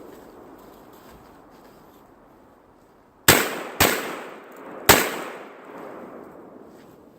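Saiga 12 semi-automatic 12 gauge shotgun firing three shots of birdshot, the first two half a second apart and the third about a second later, each followed by a rolling echo.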